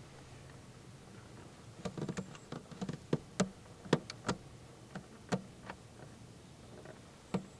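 An irregular run of sharp, light clicks and taps, about a dozen over four seconds, with one more click near the end.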